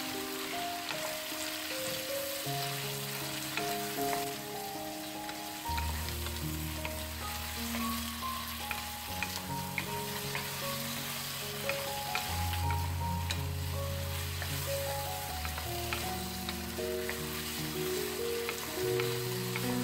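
Sausages and vegetables in sauce sizzling in a frying pan while being stirred with a wooden spatula, the spatula clicking and scraping against the pan now and then.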